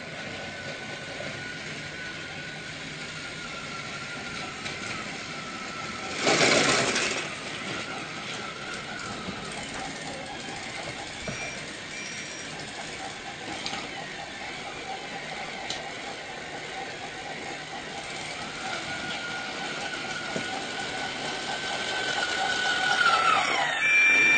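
Small electric motor of a battery-powered toy train running with a steady, slightly wavering whine. About six seconds in there is a loud rushing burst lasting about a second. Near the end the whine rises and wavers.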